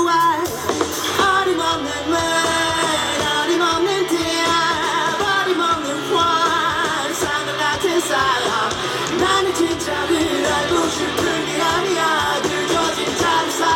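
Live band music with a male lead vocalist singing, his held notes wavering in pitch.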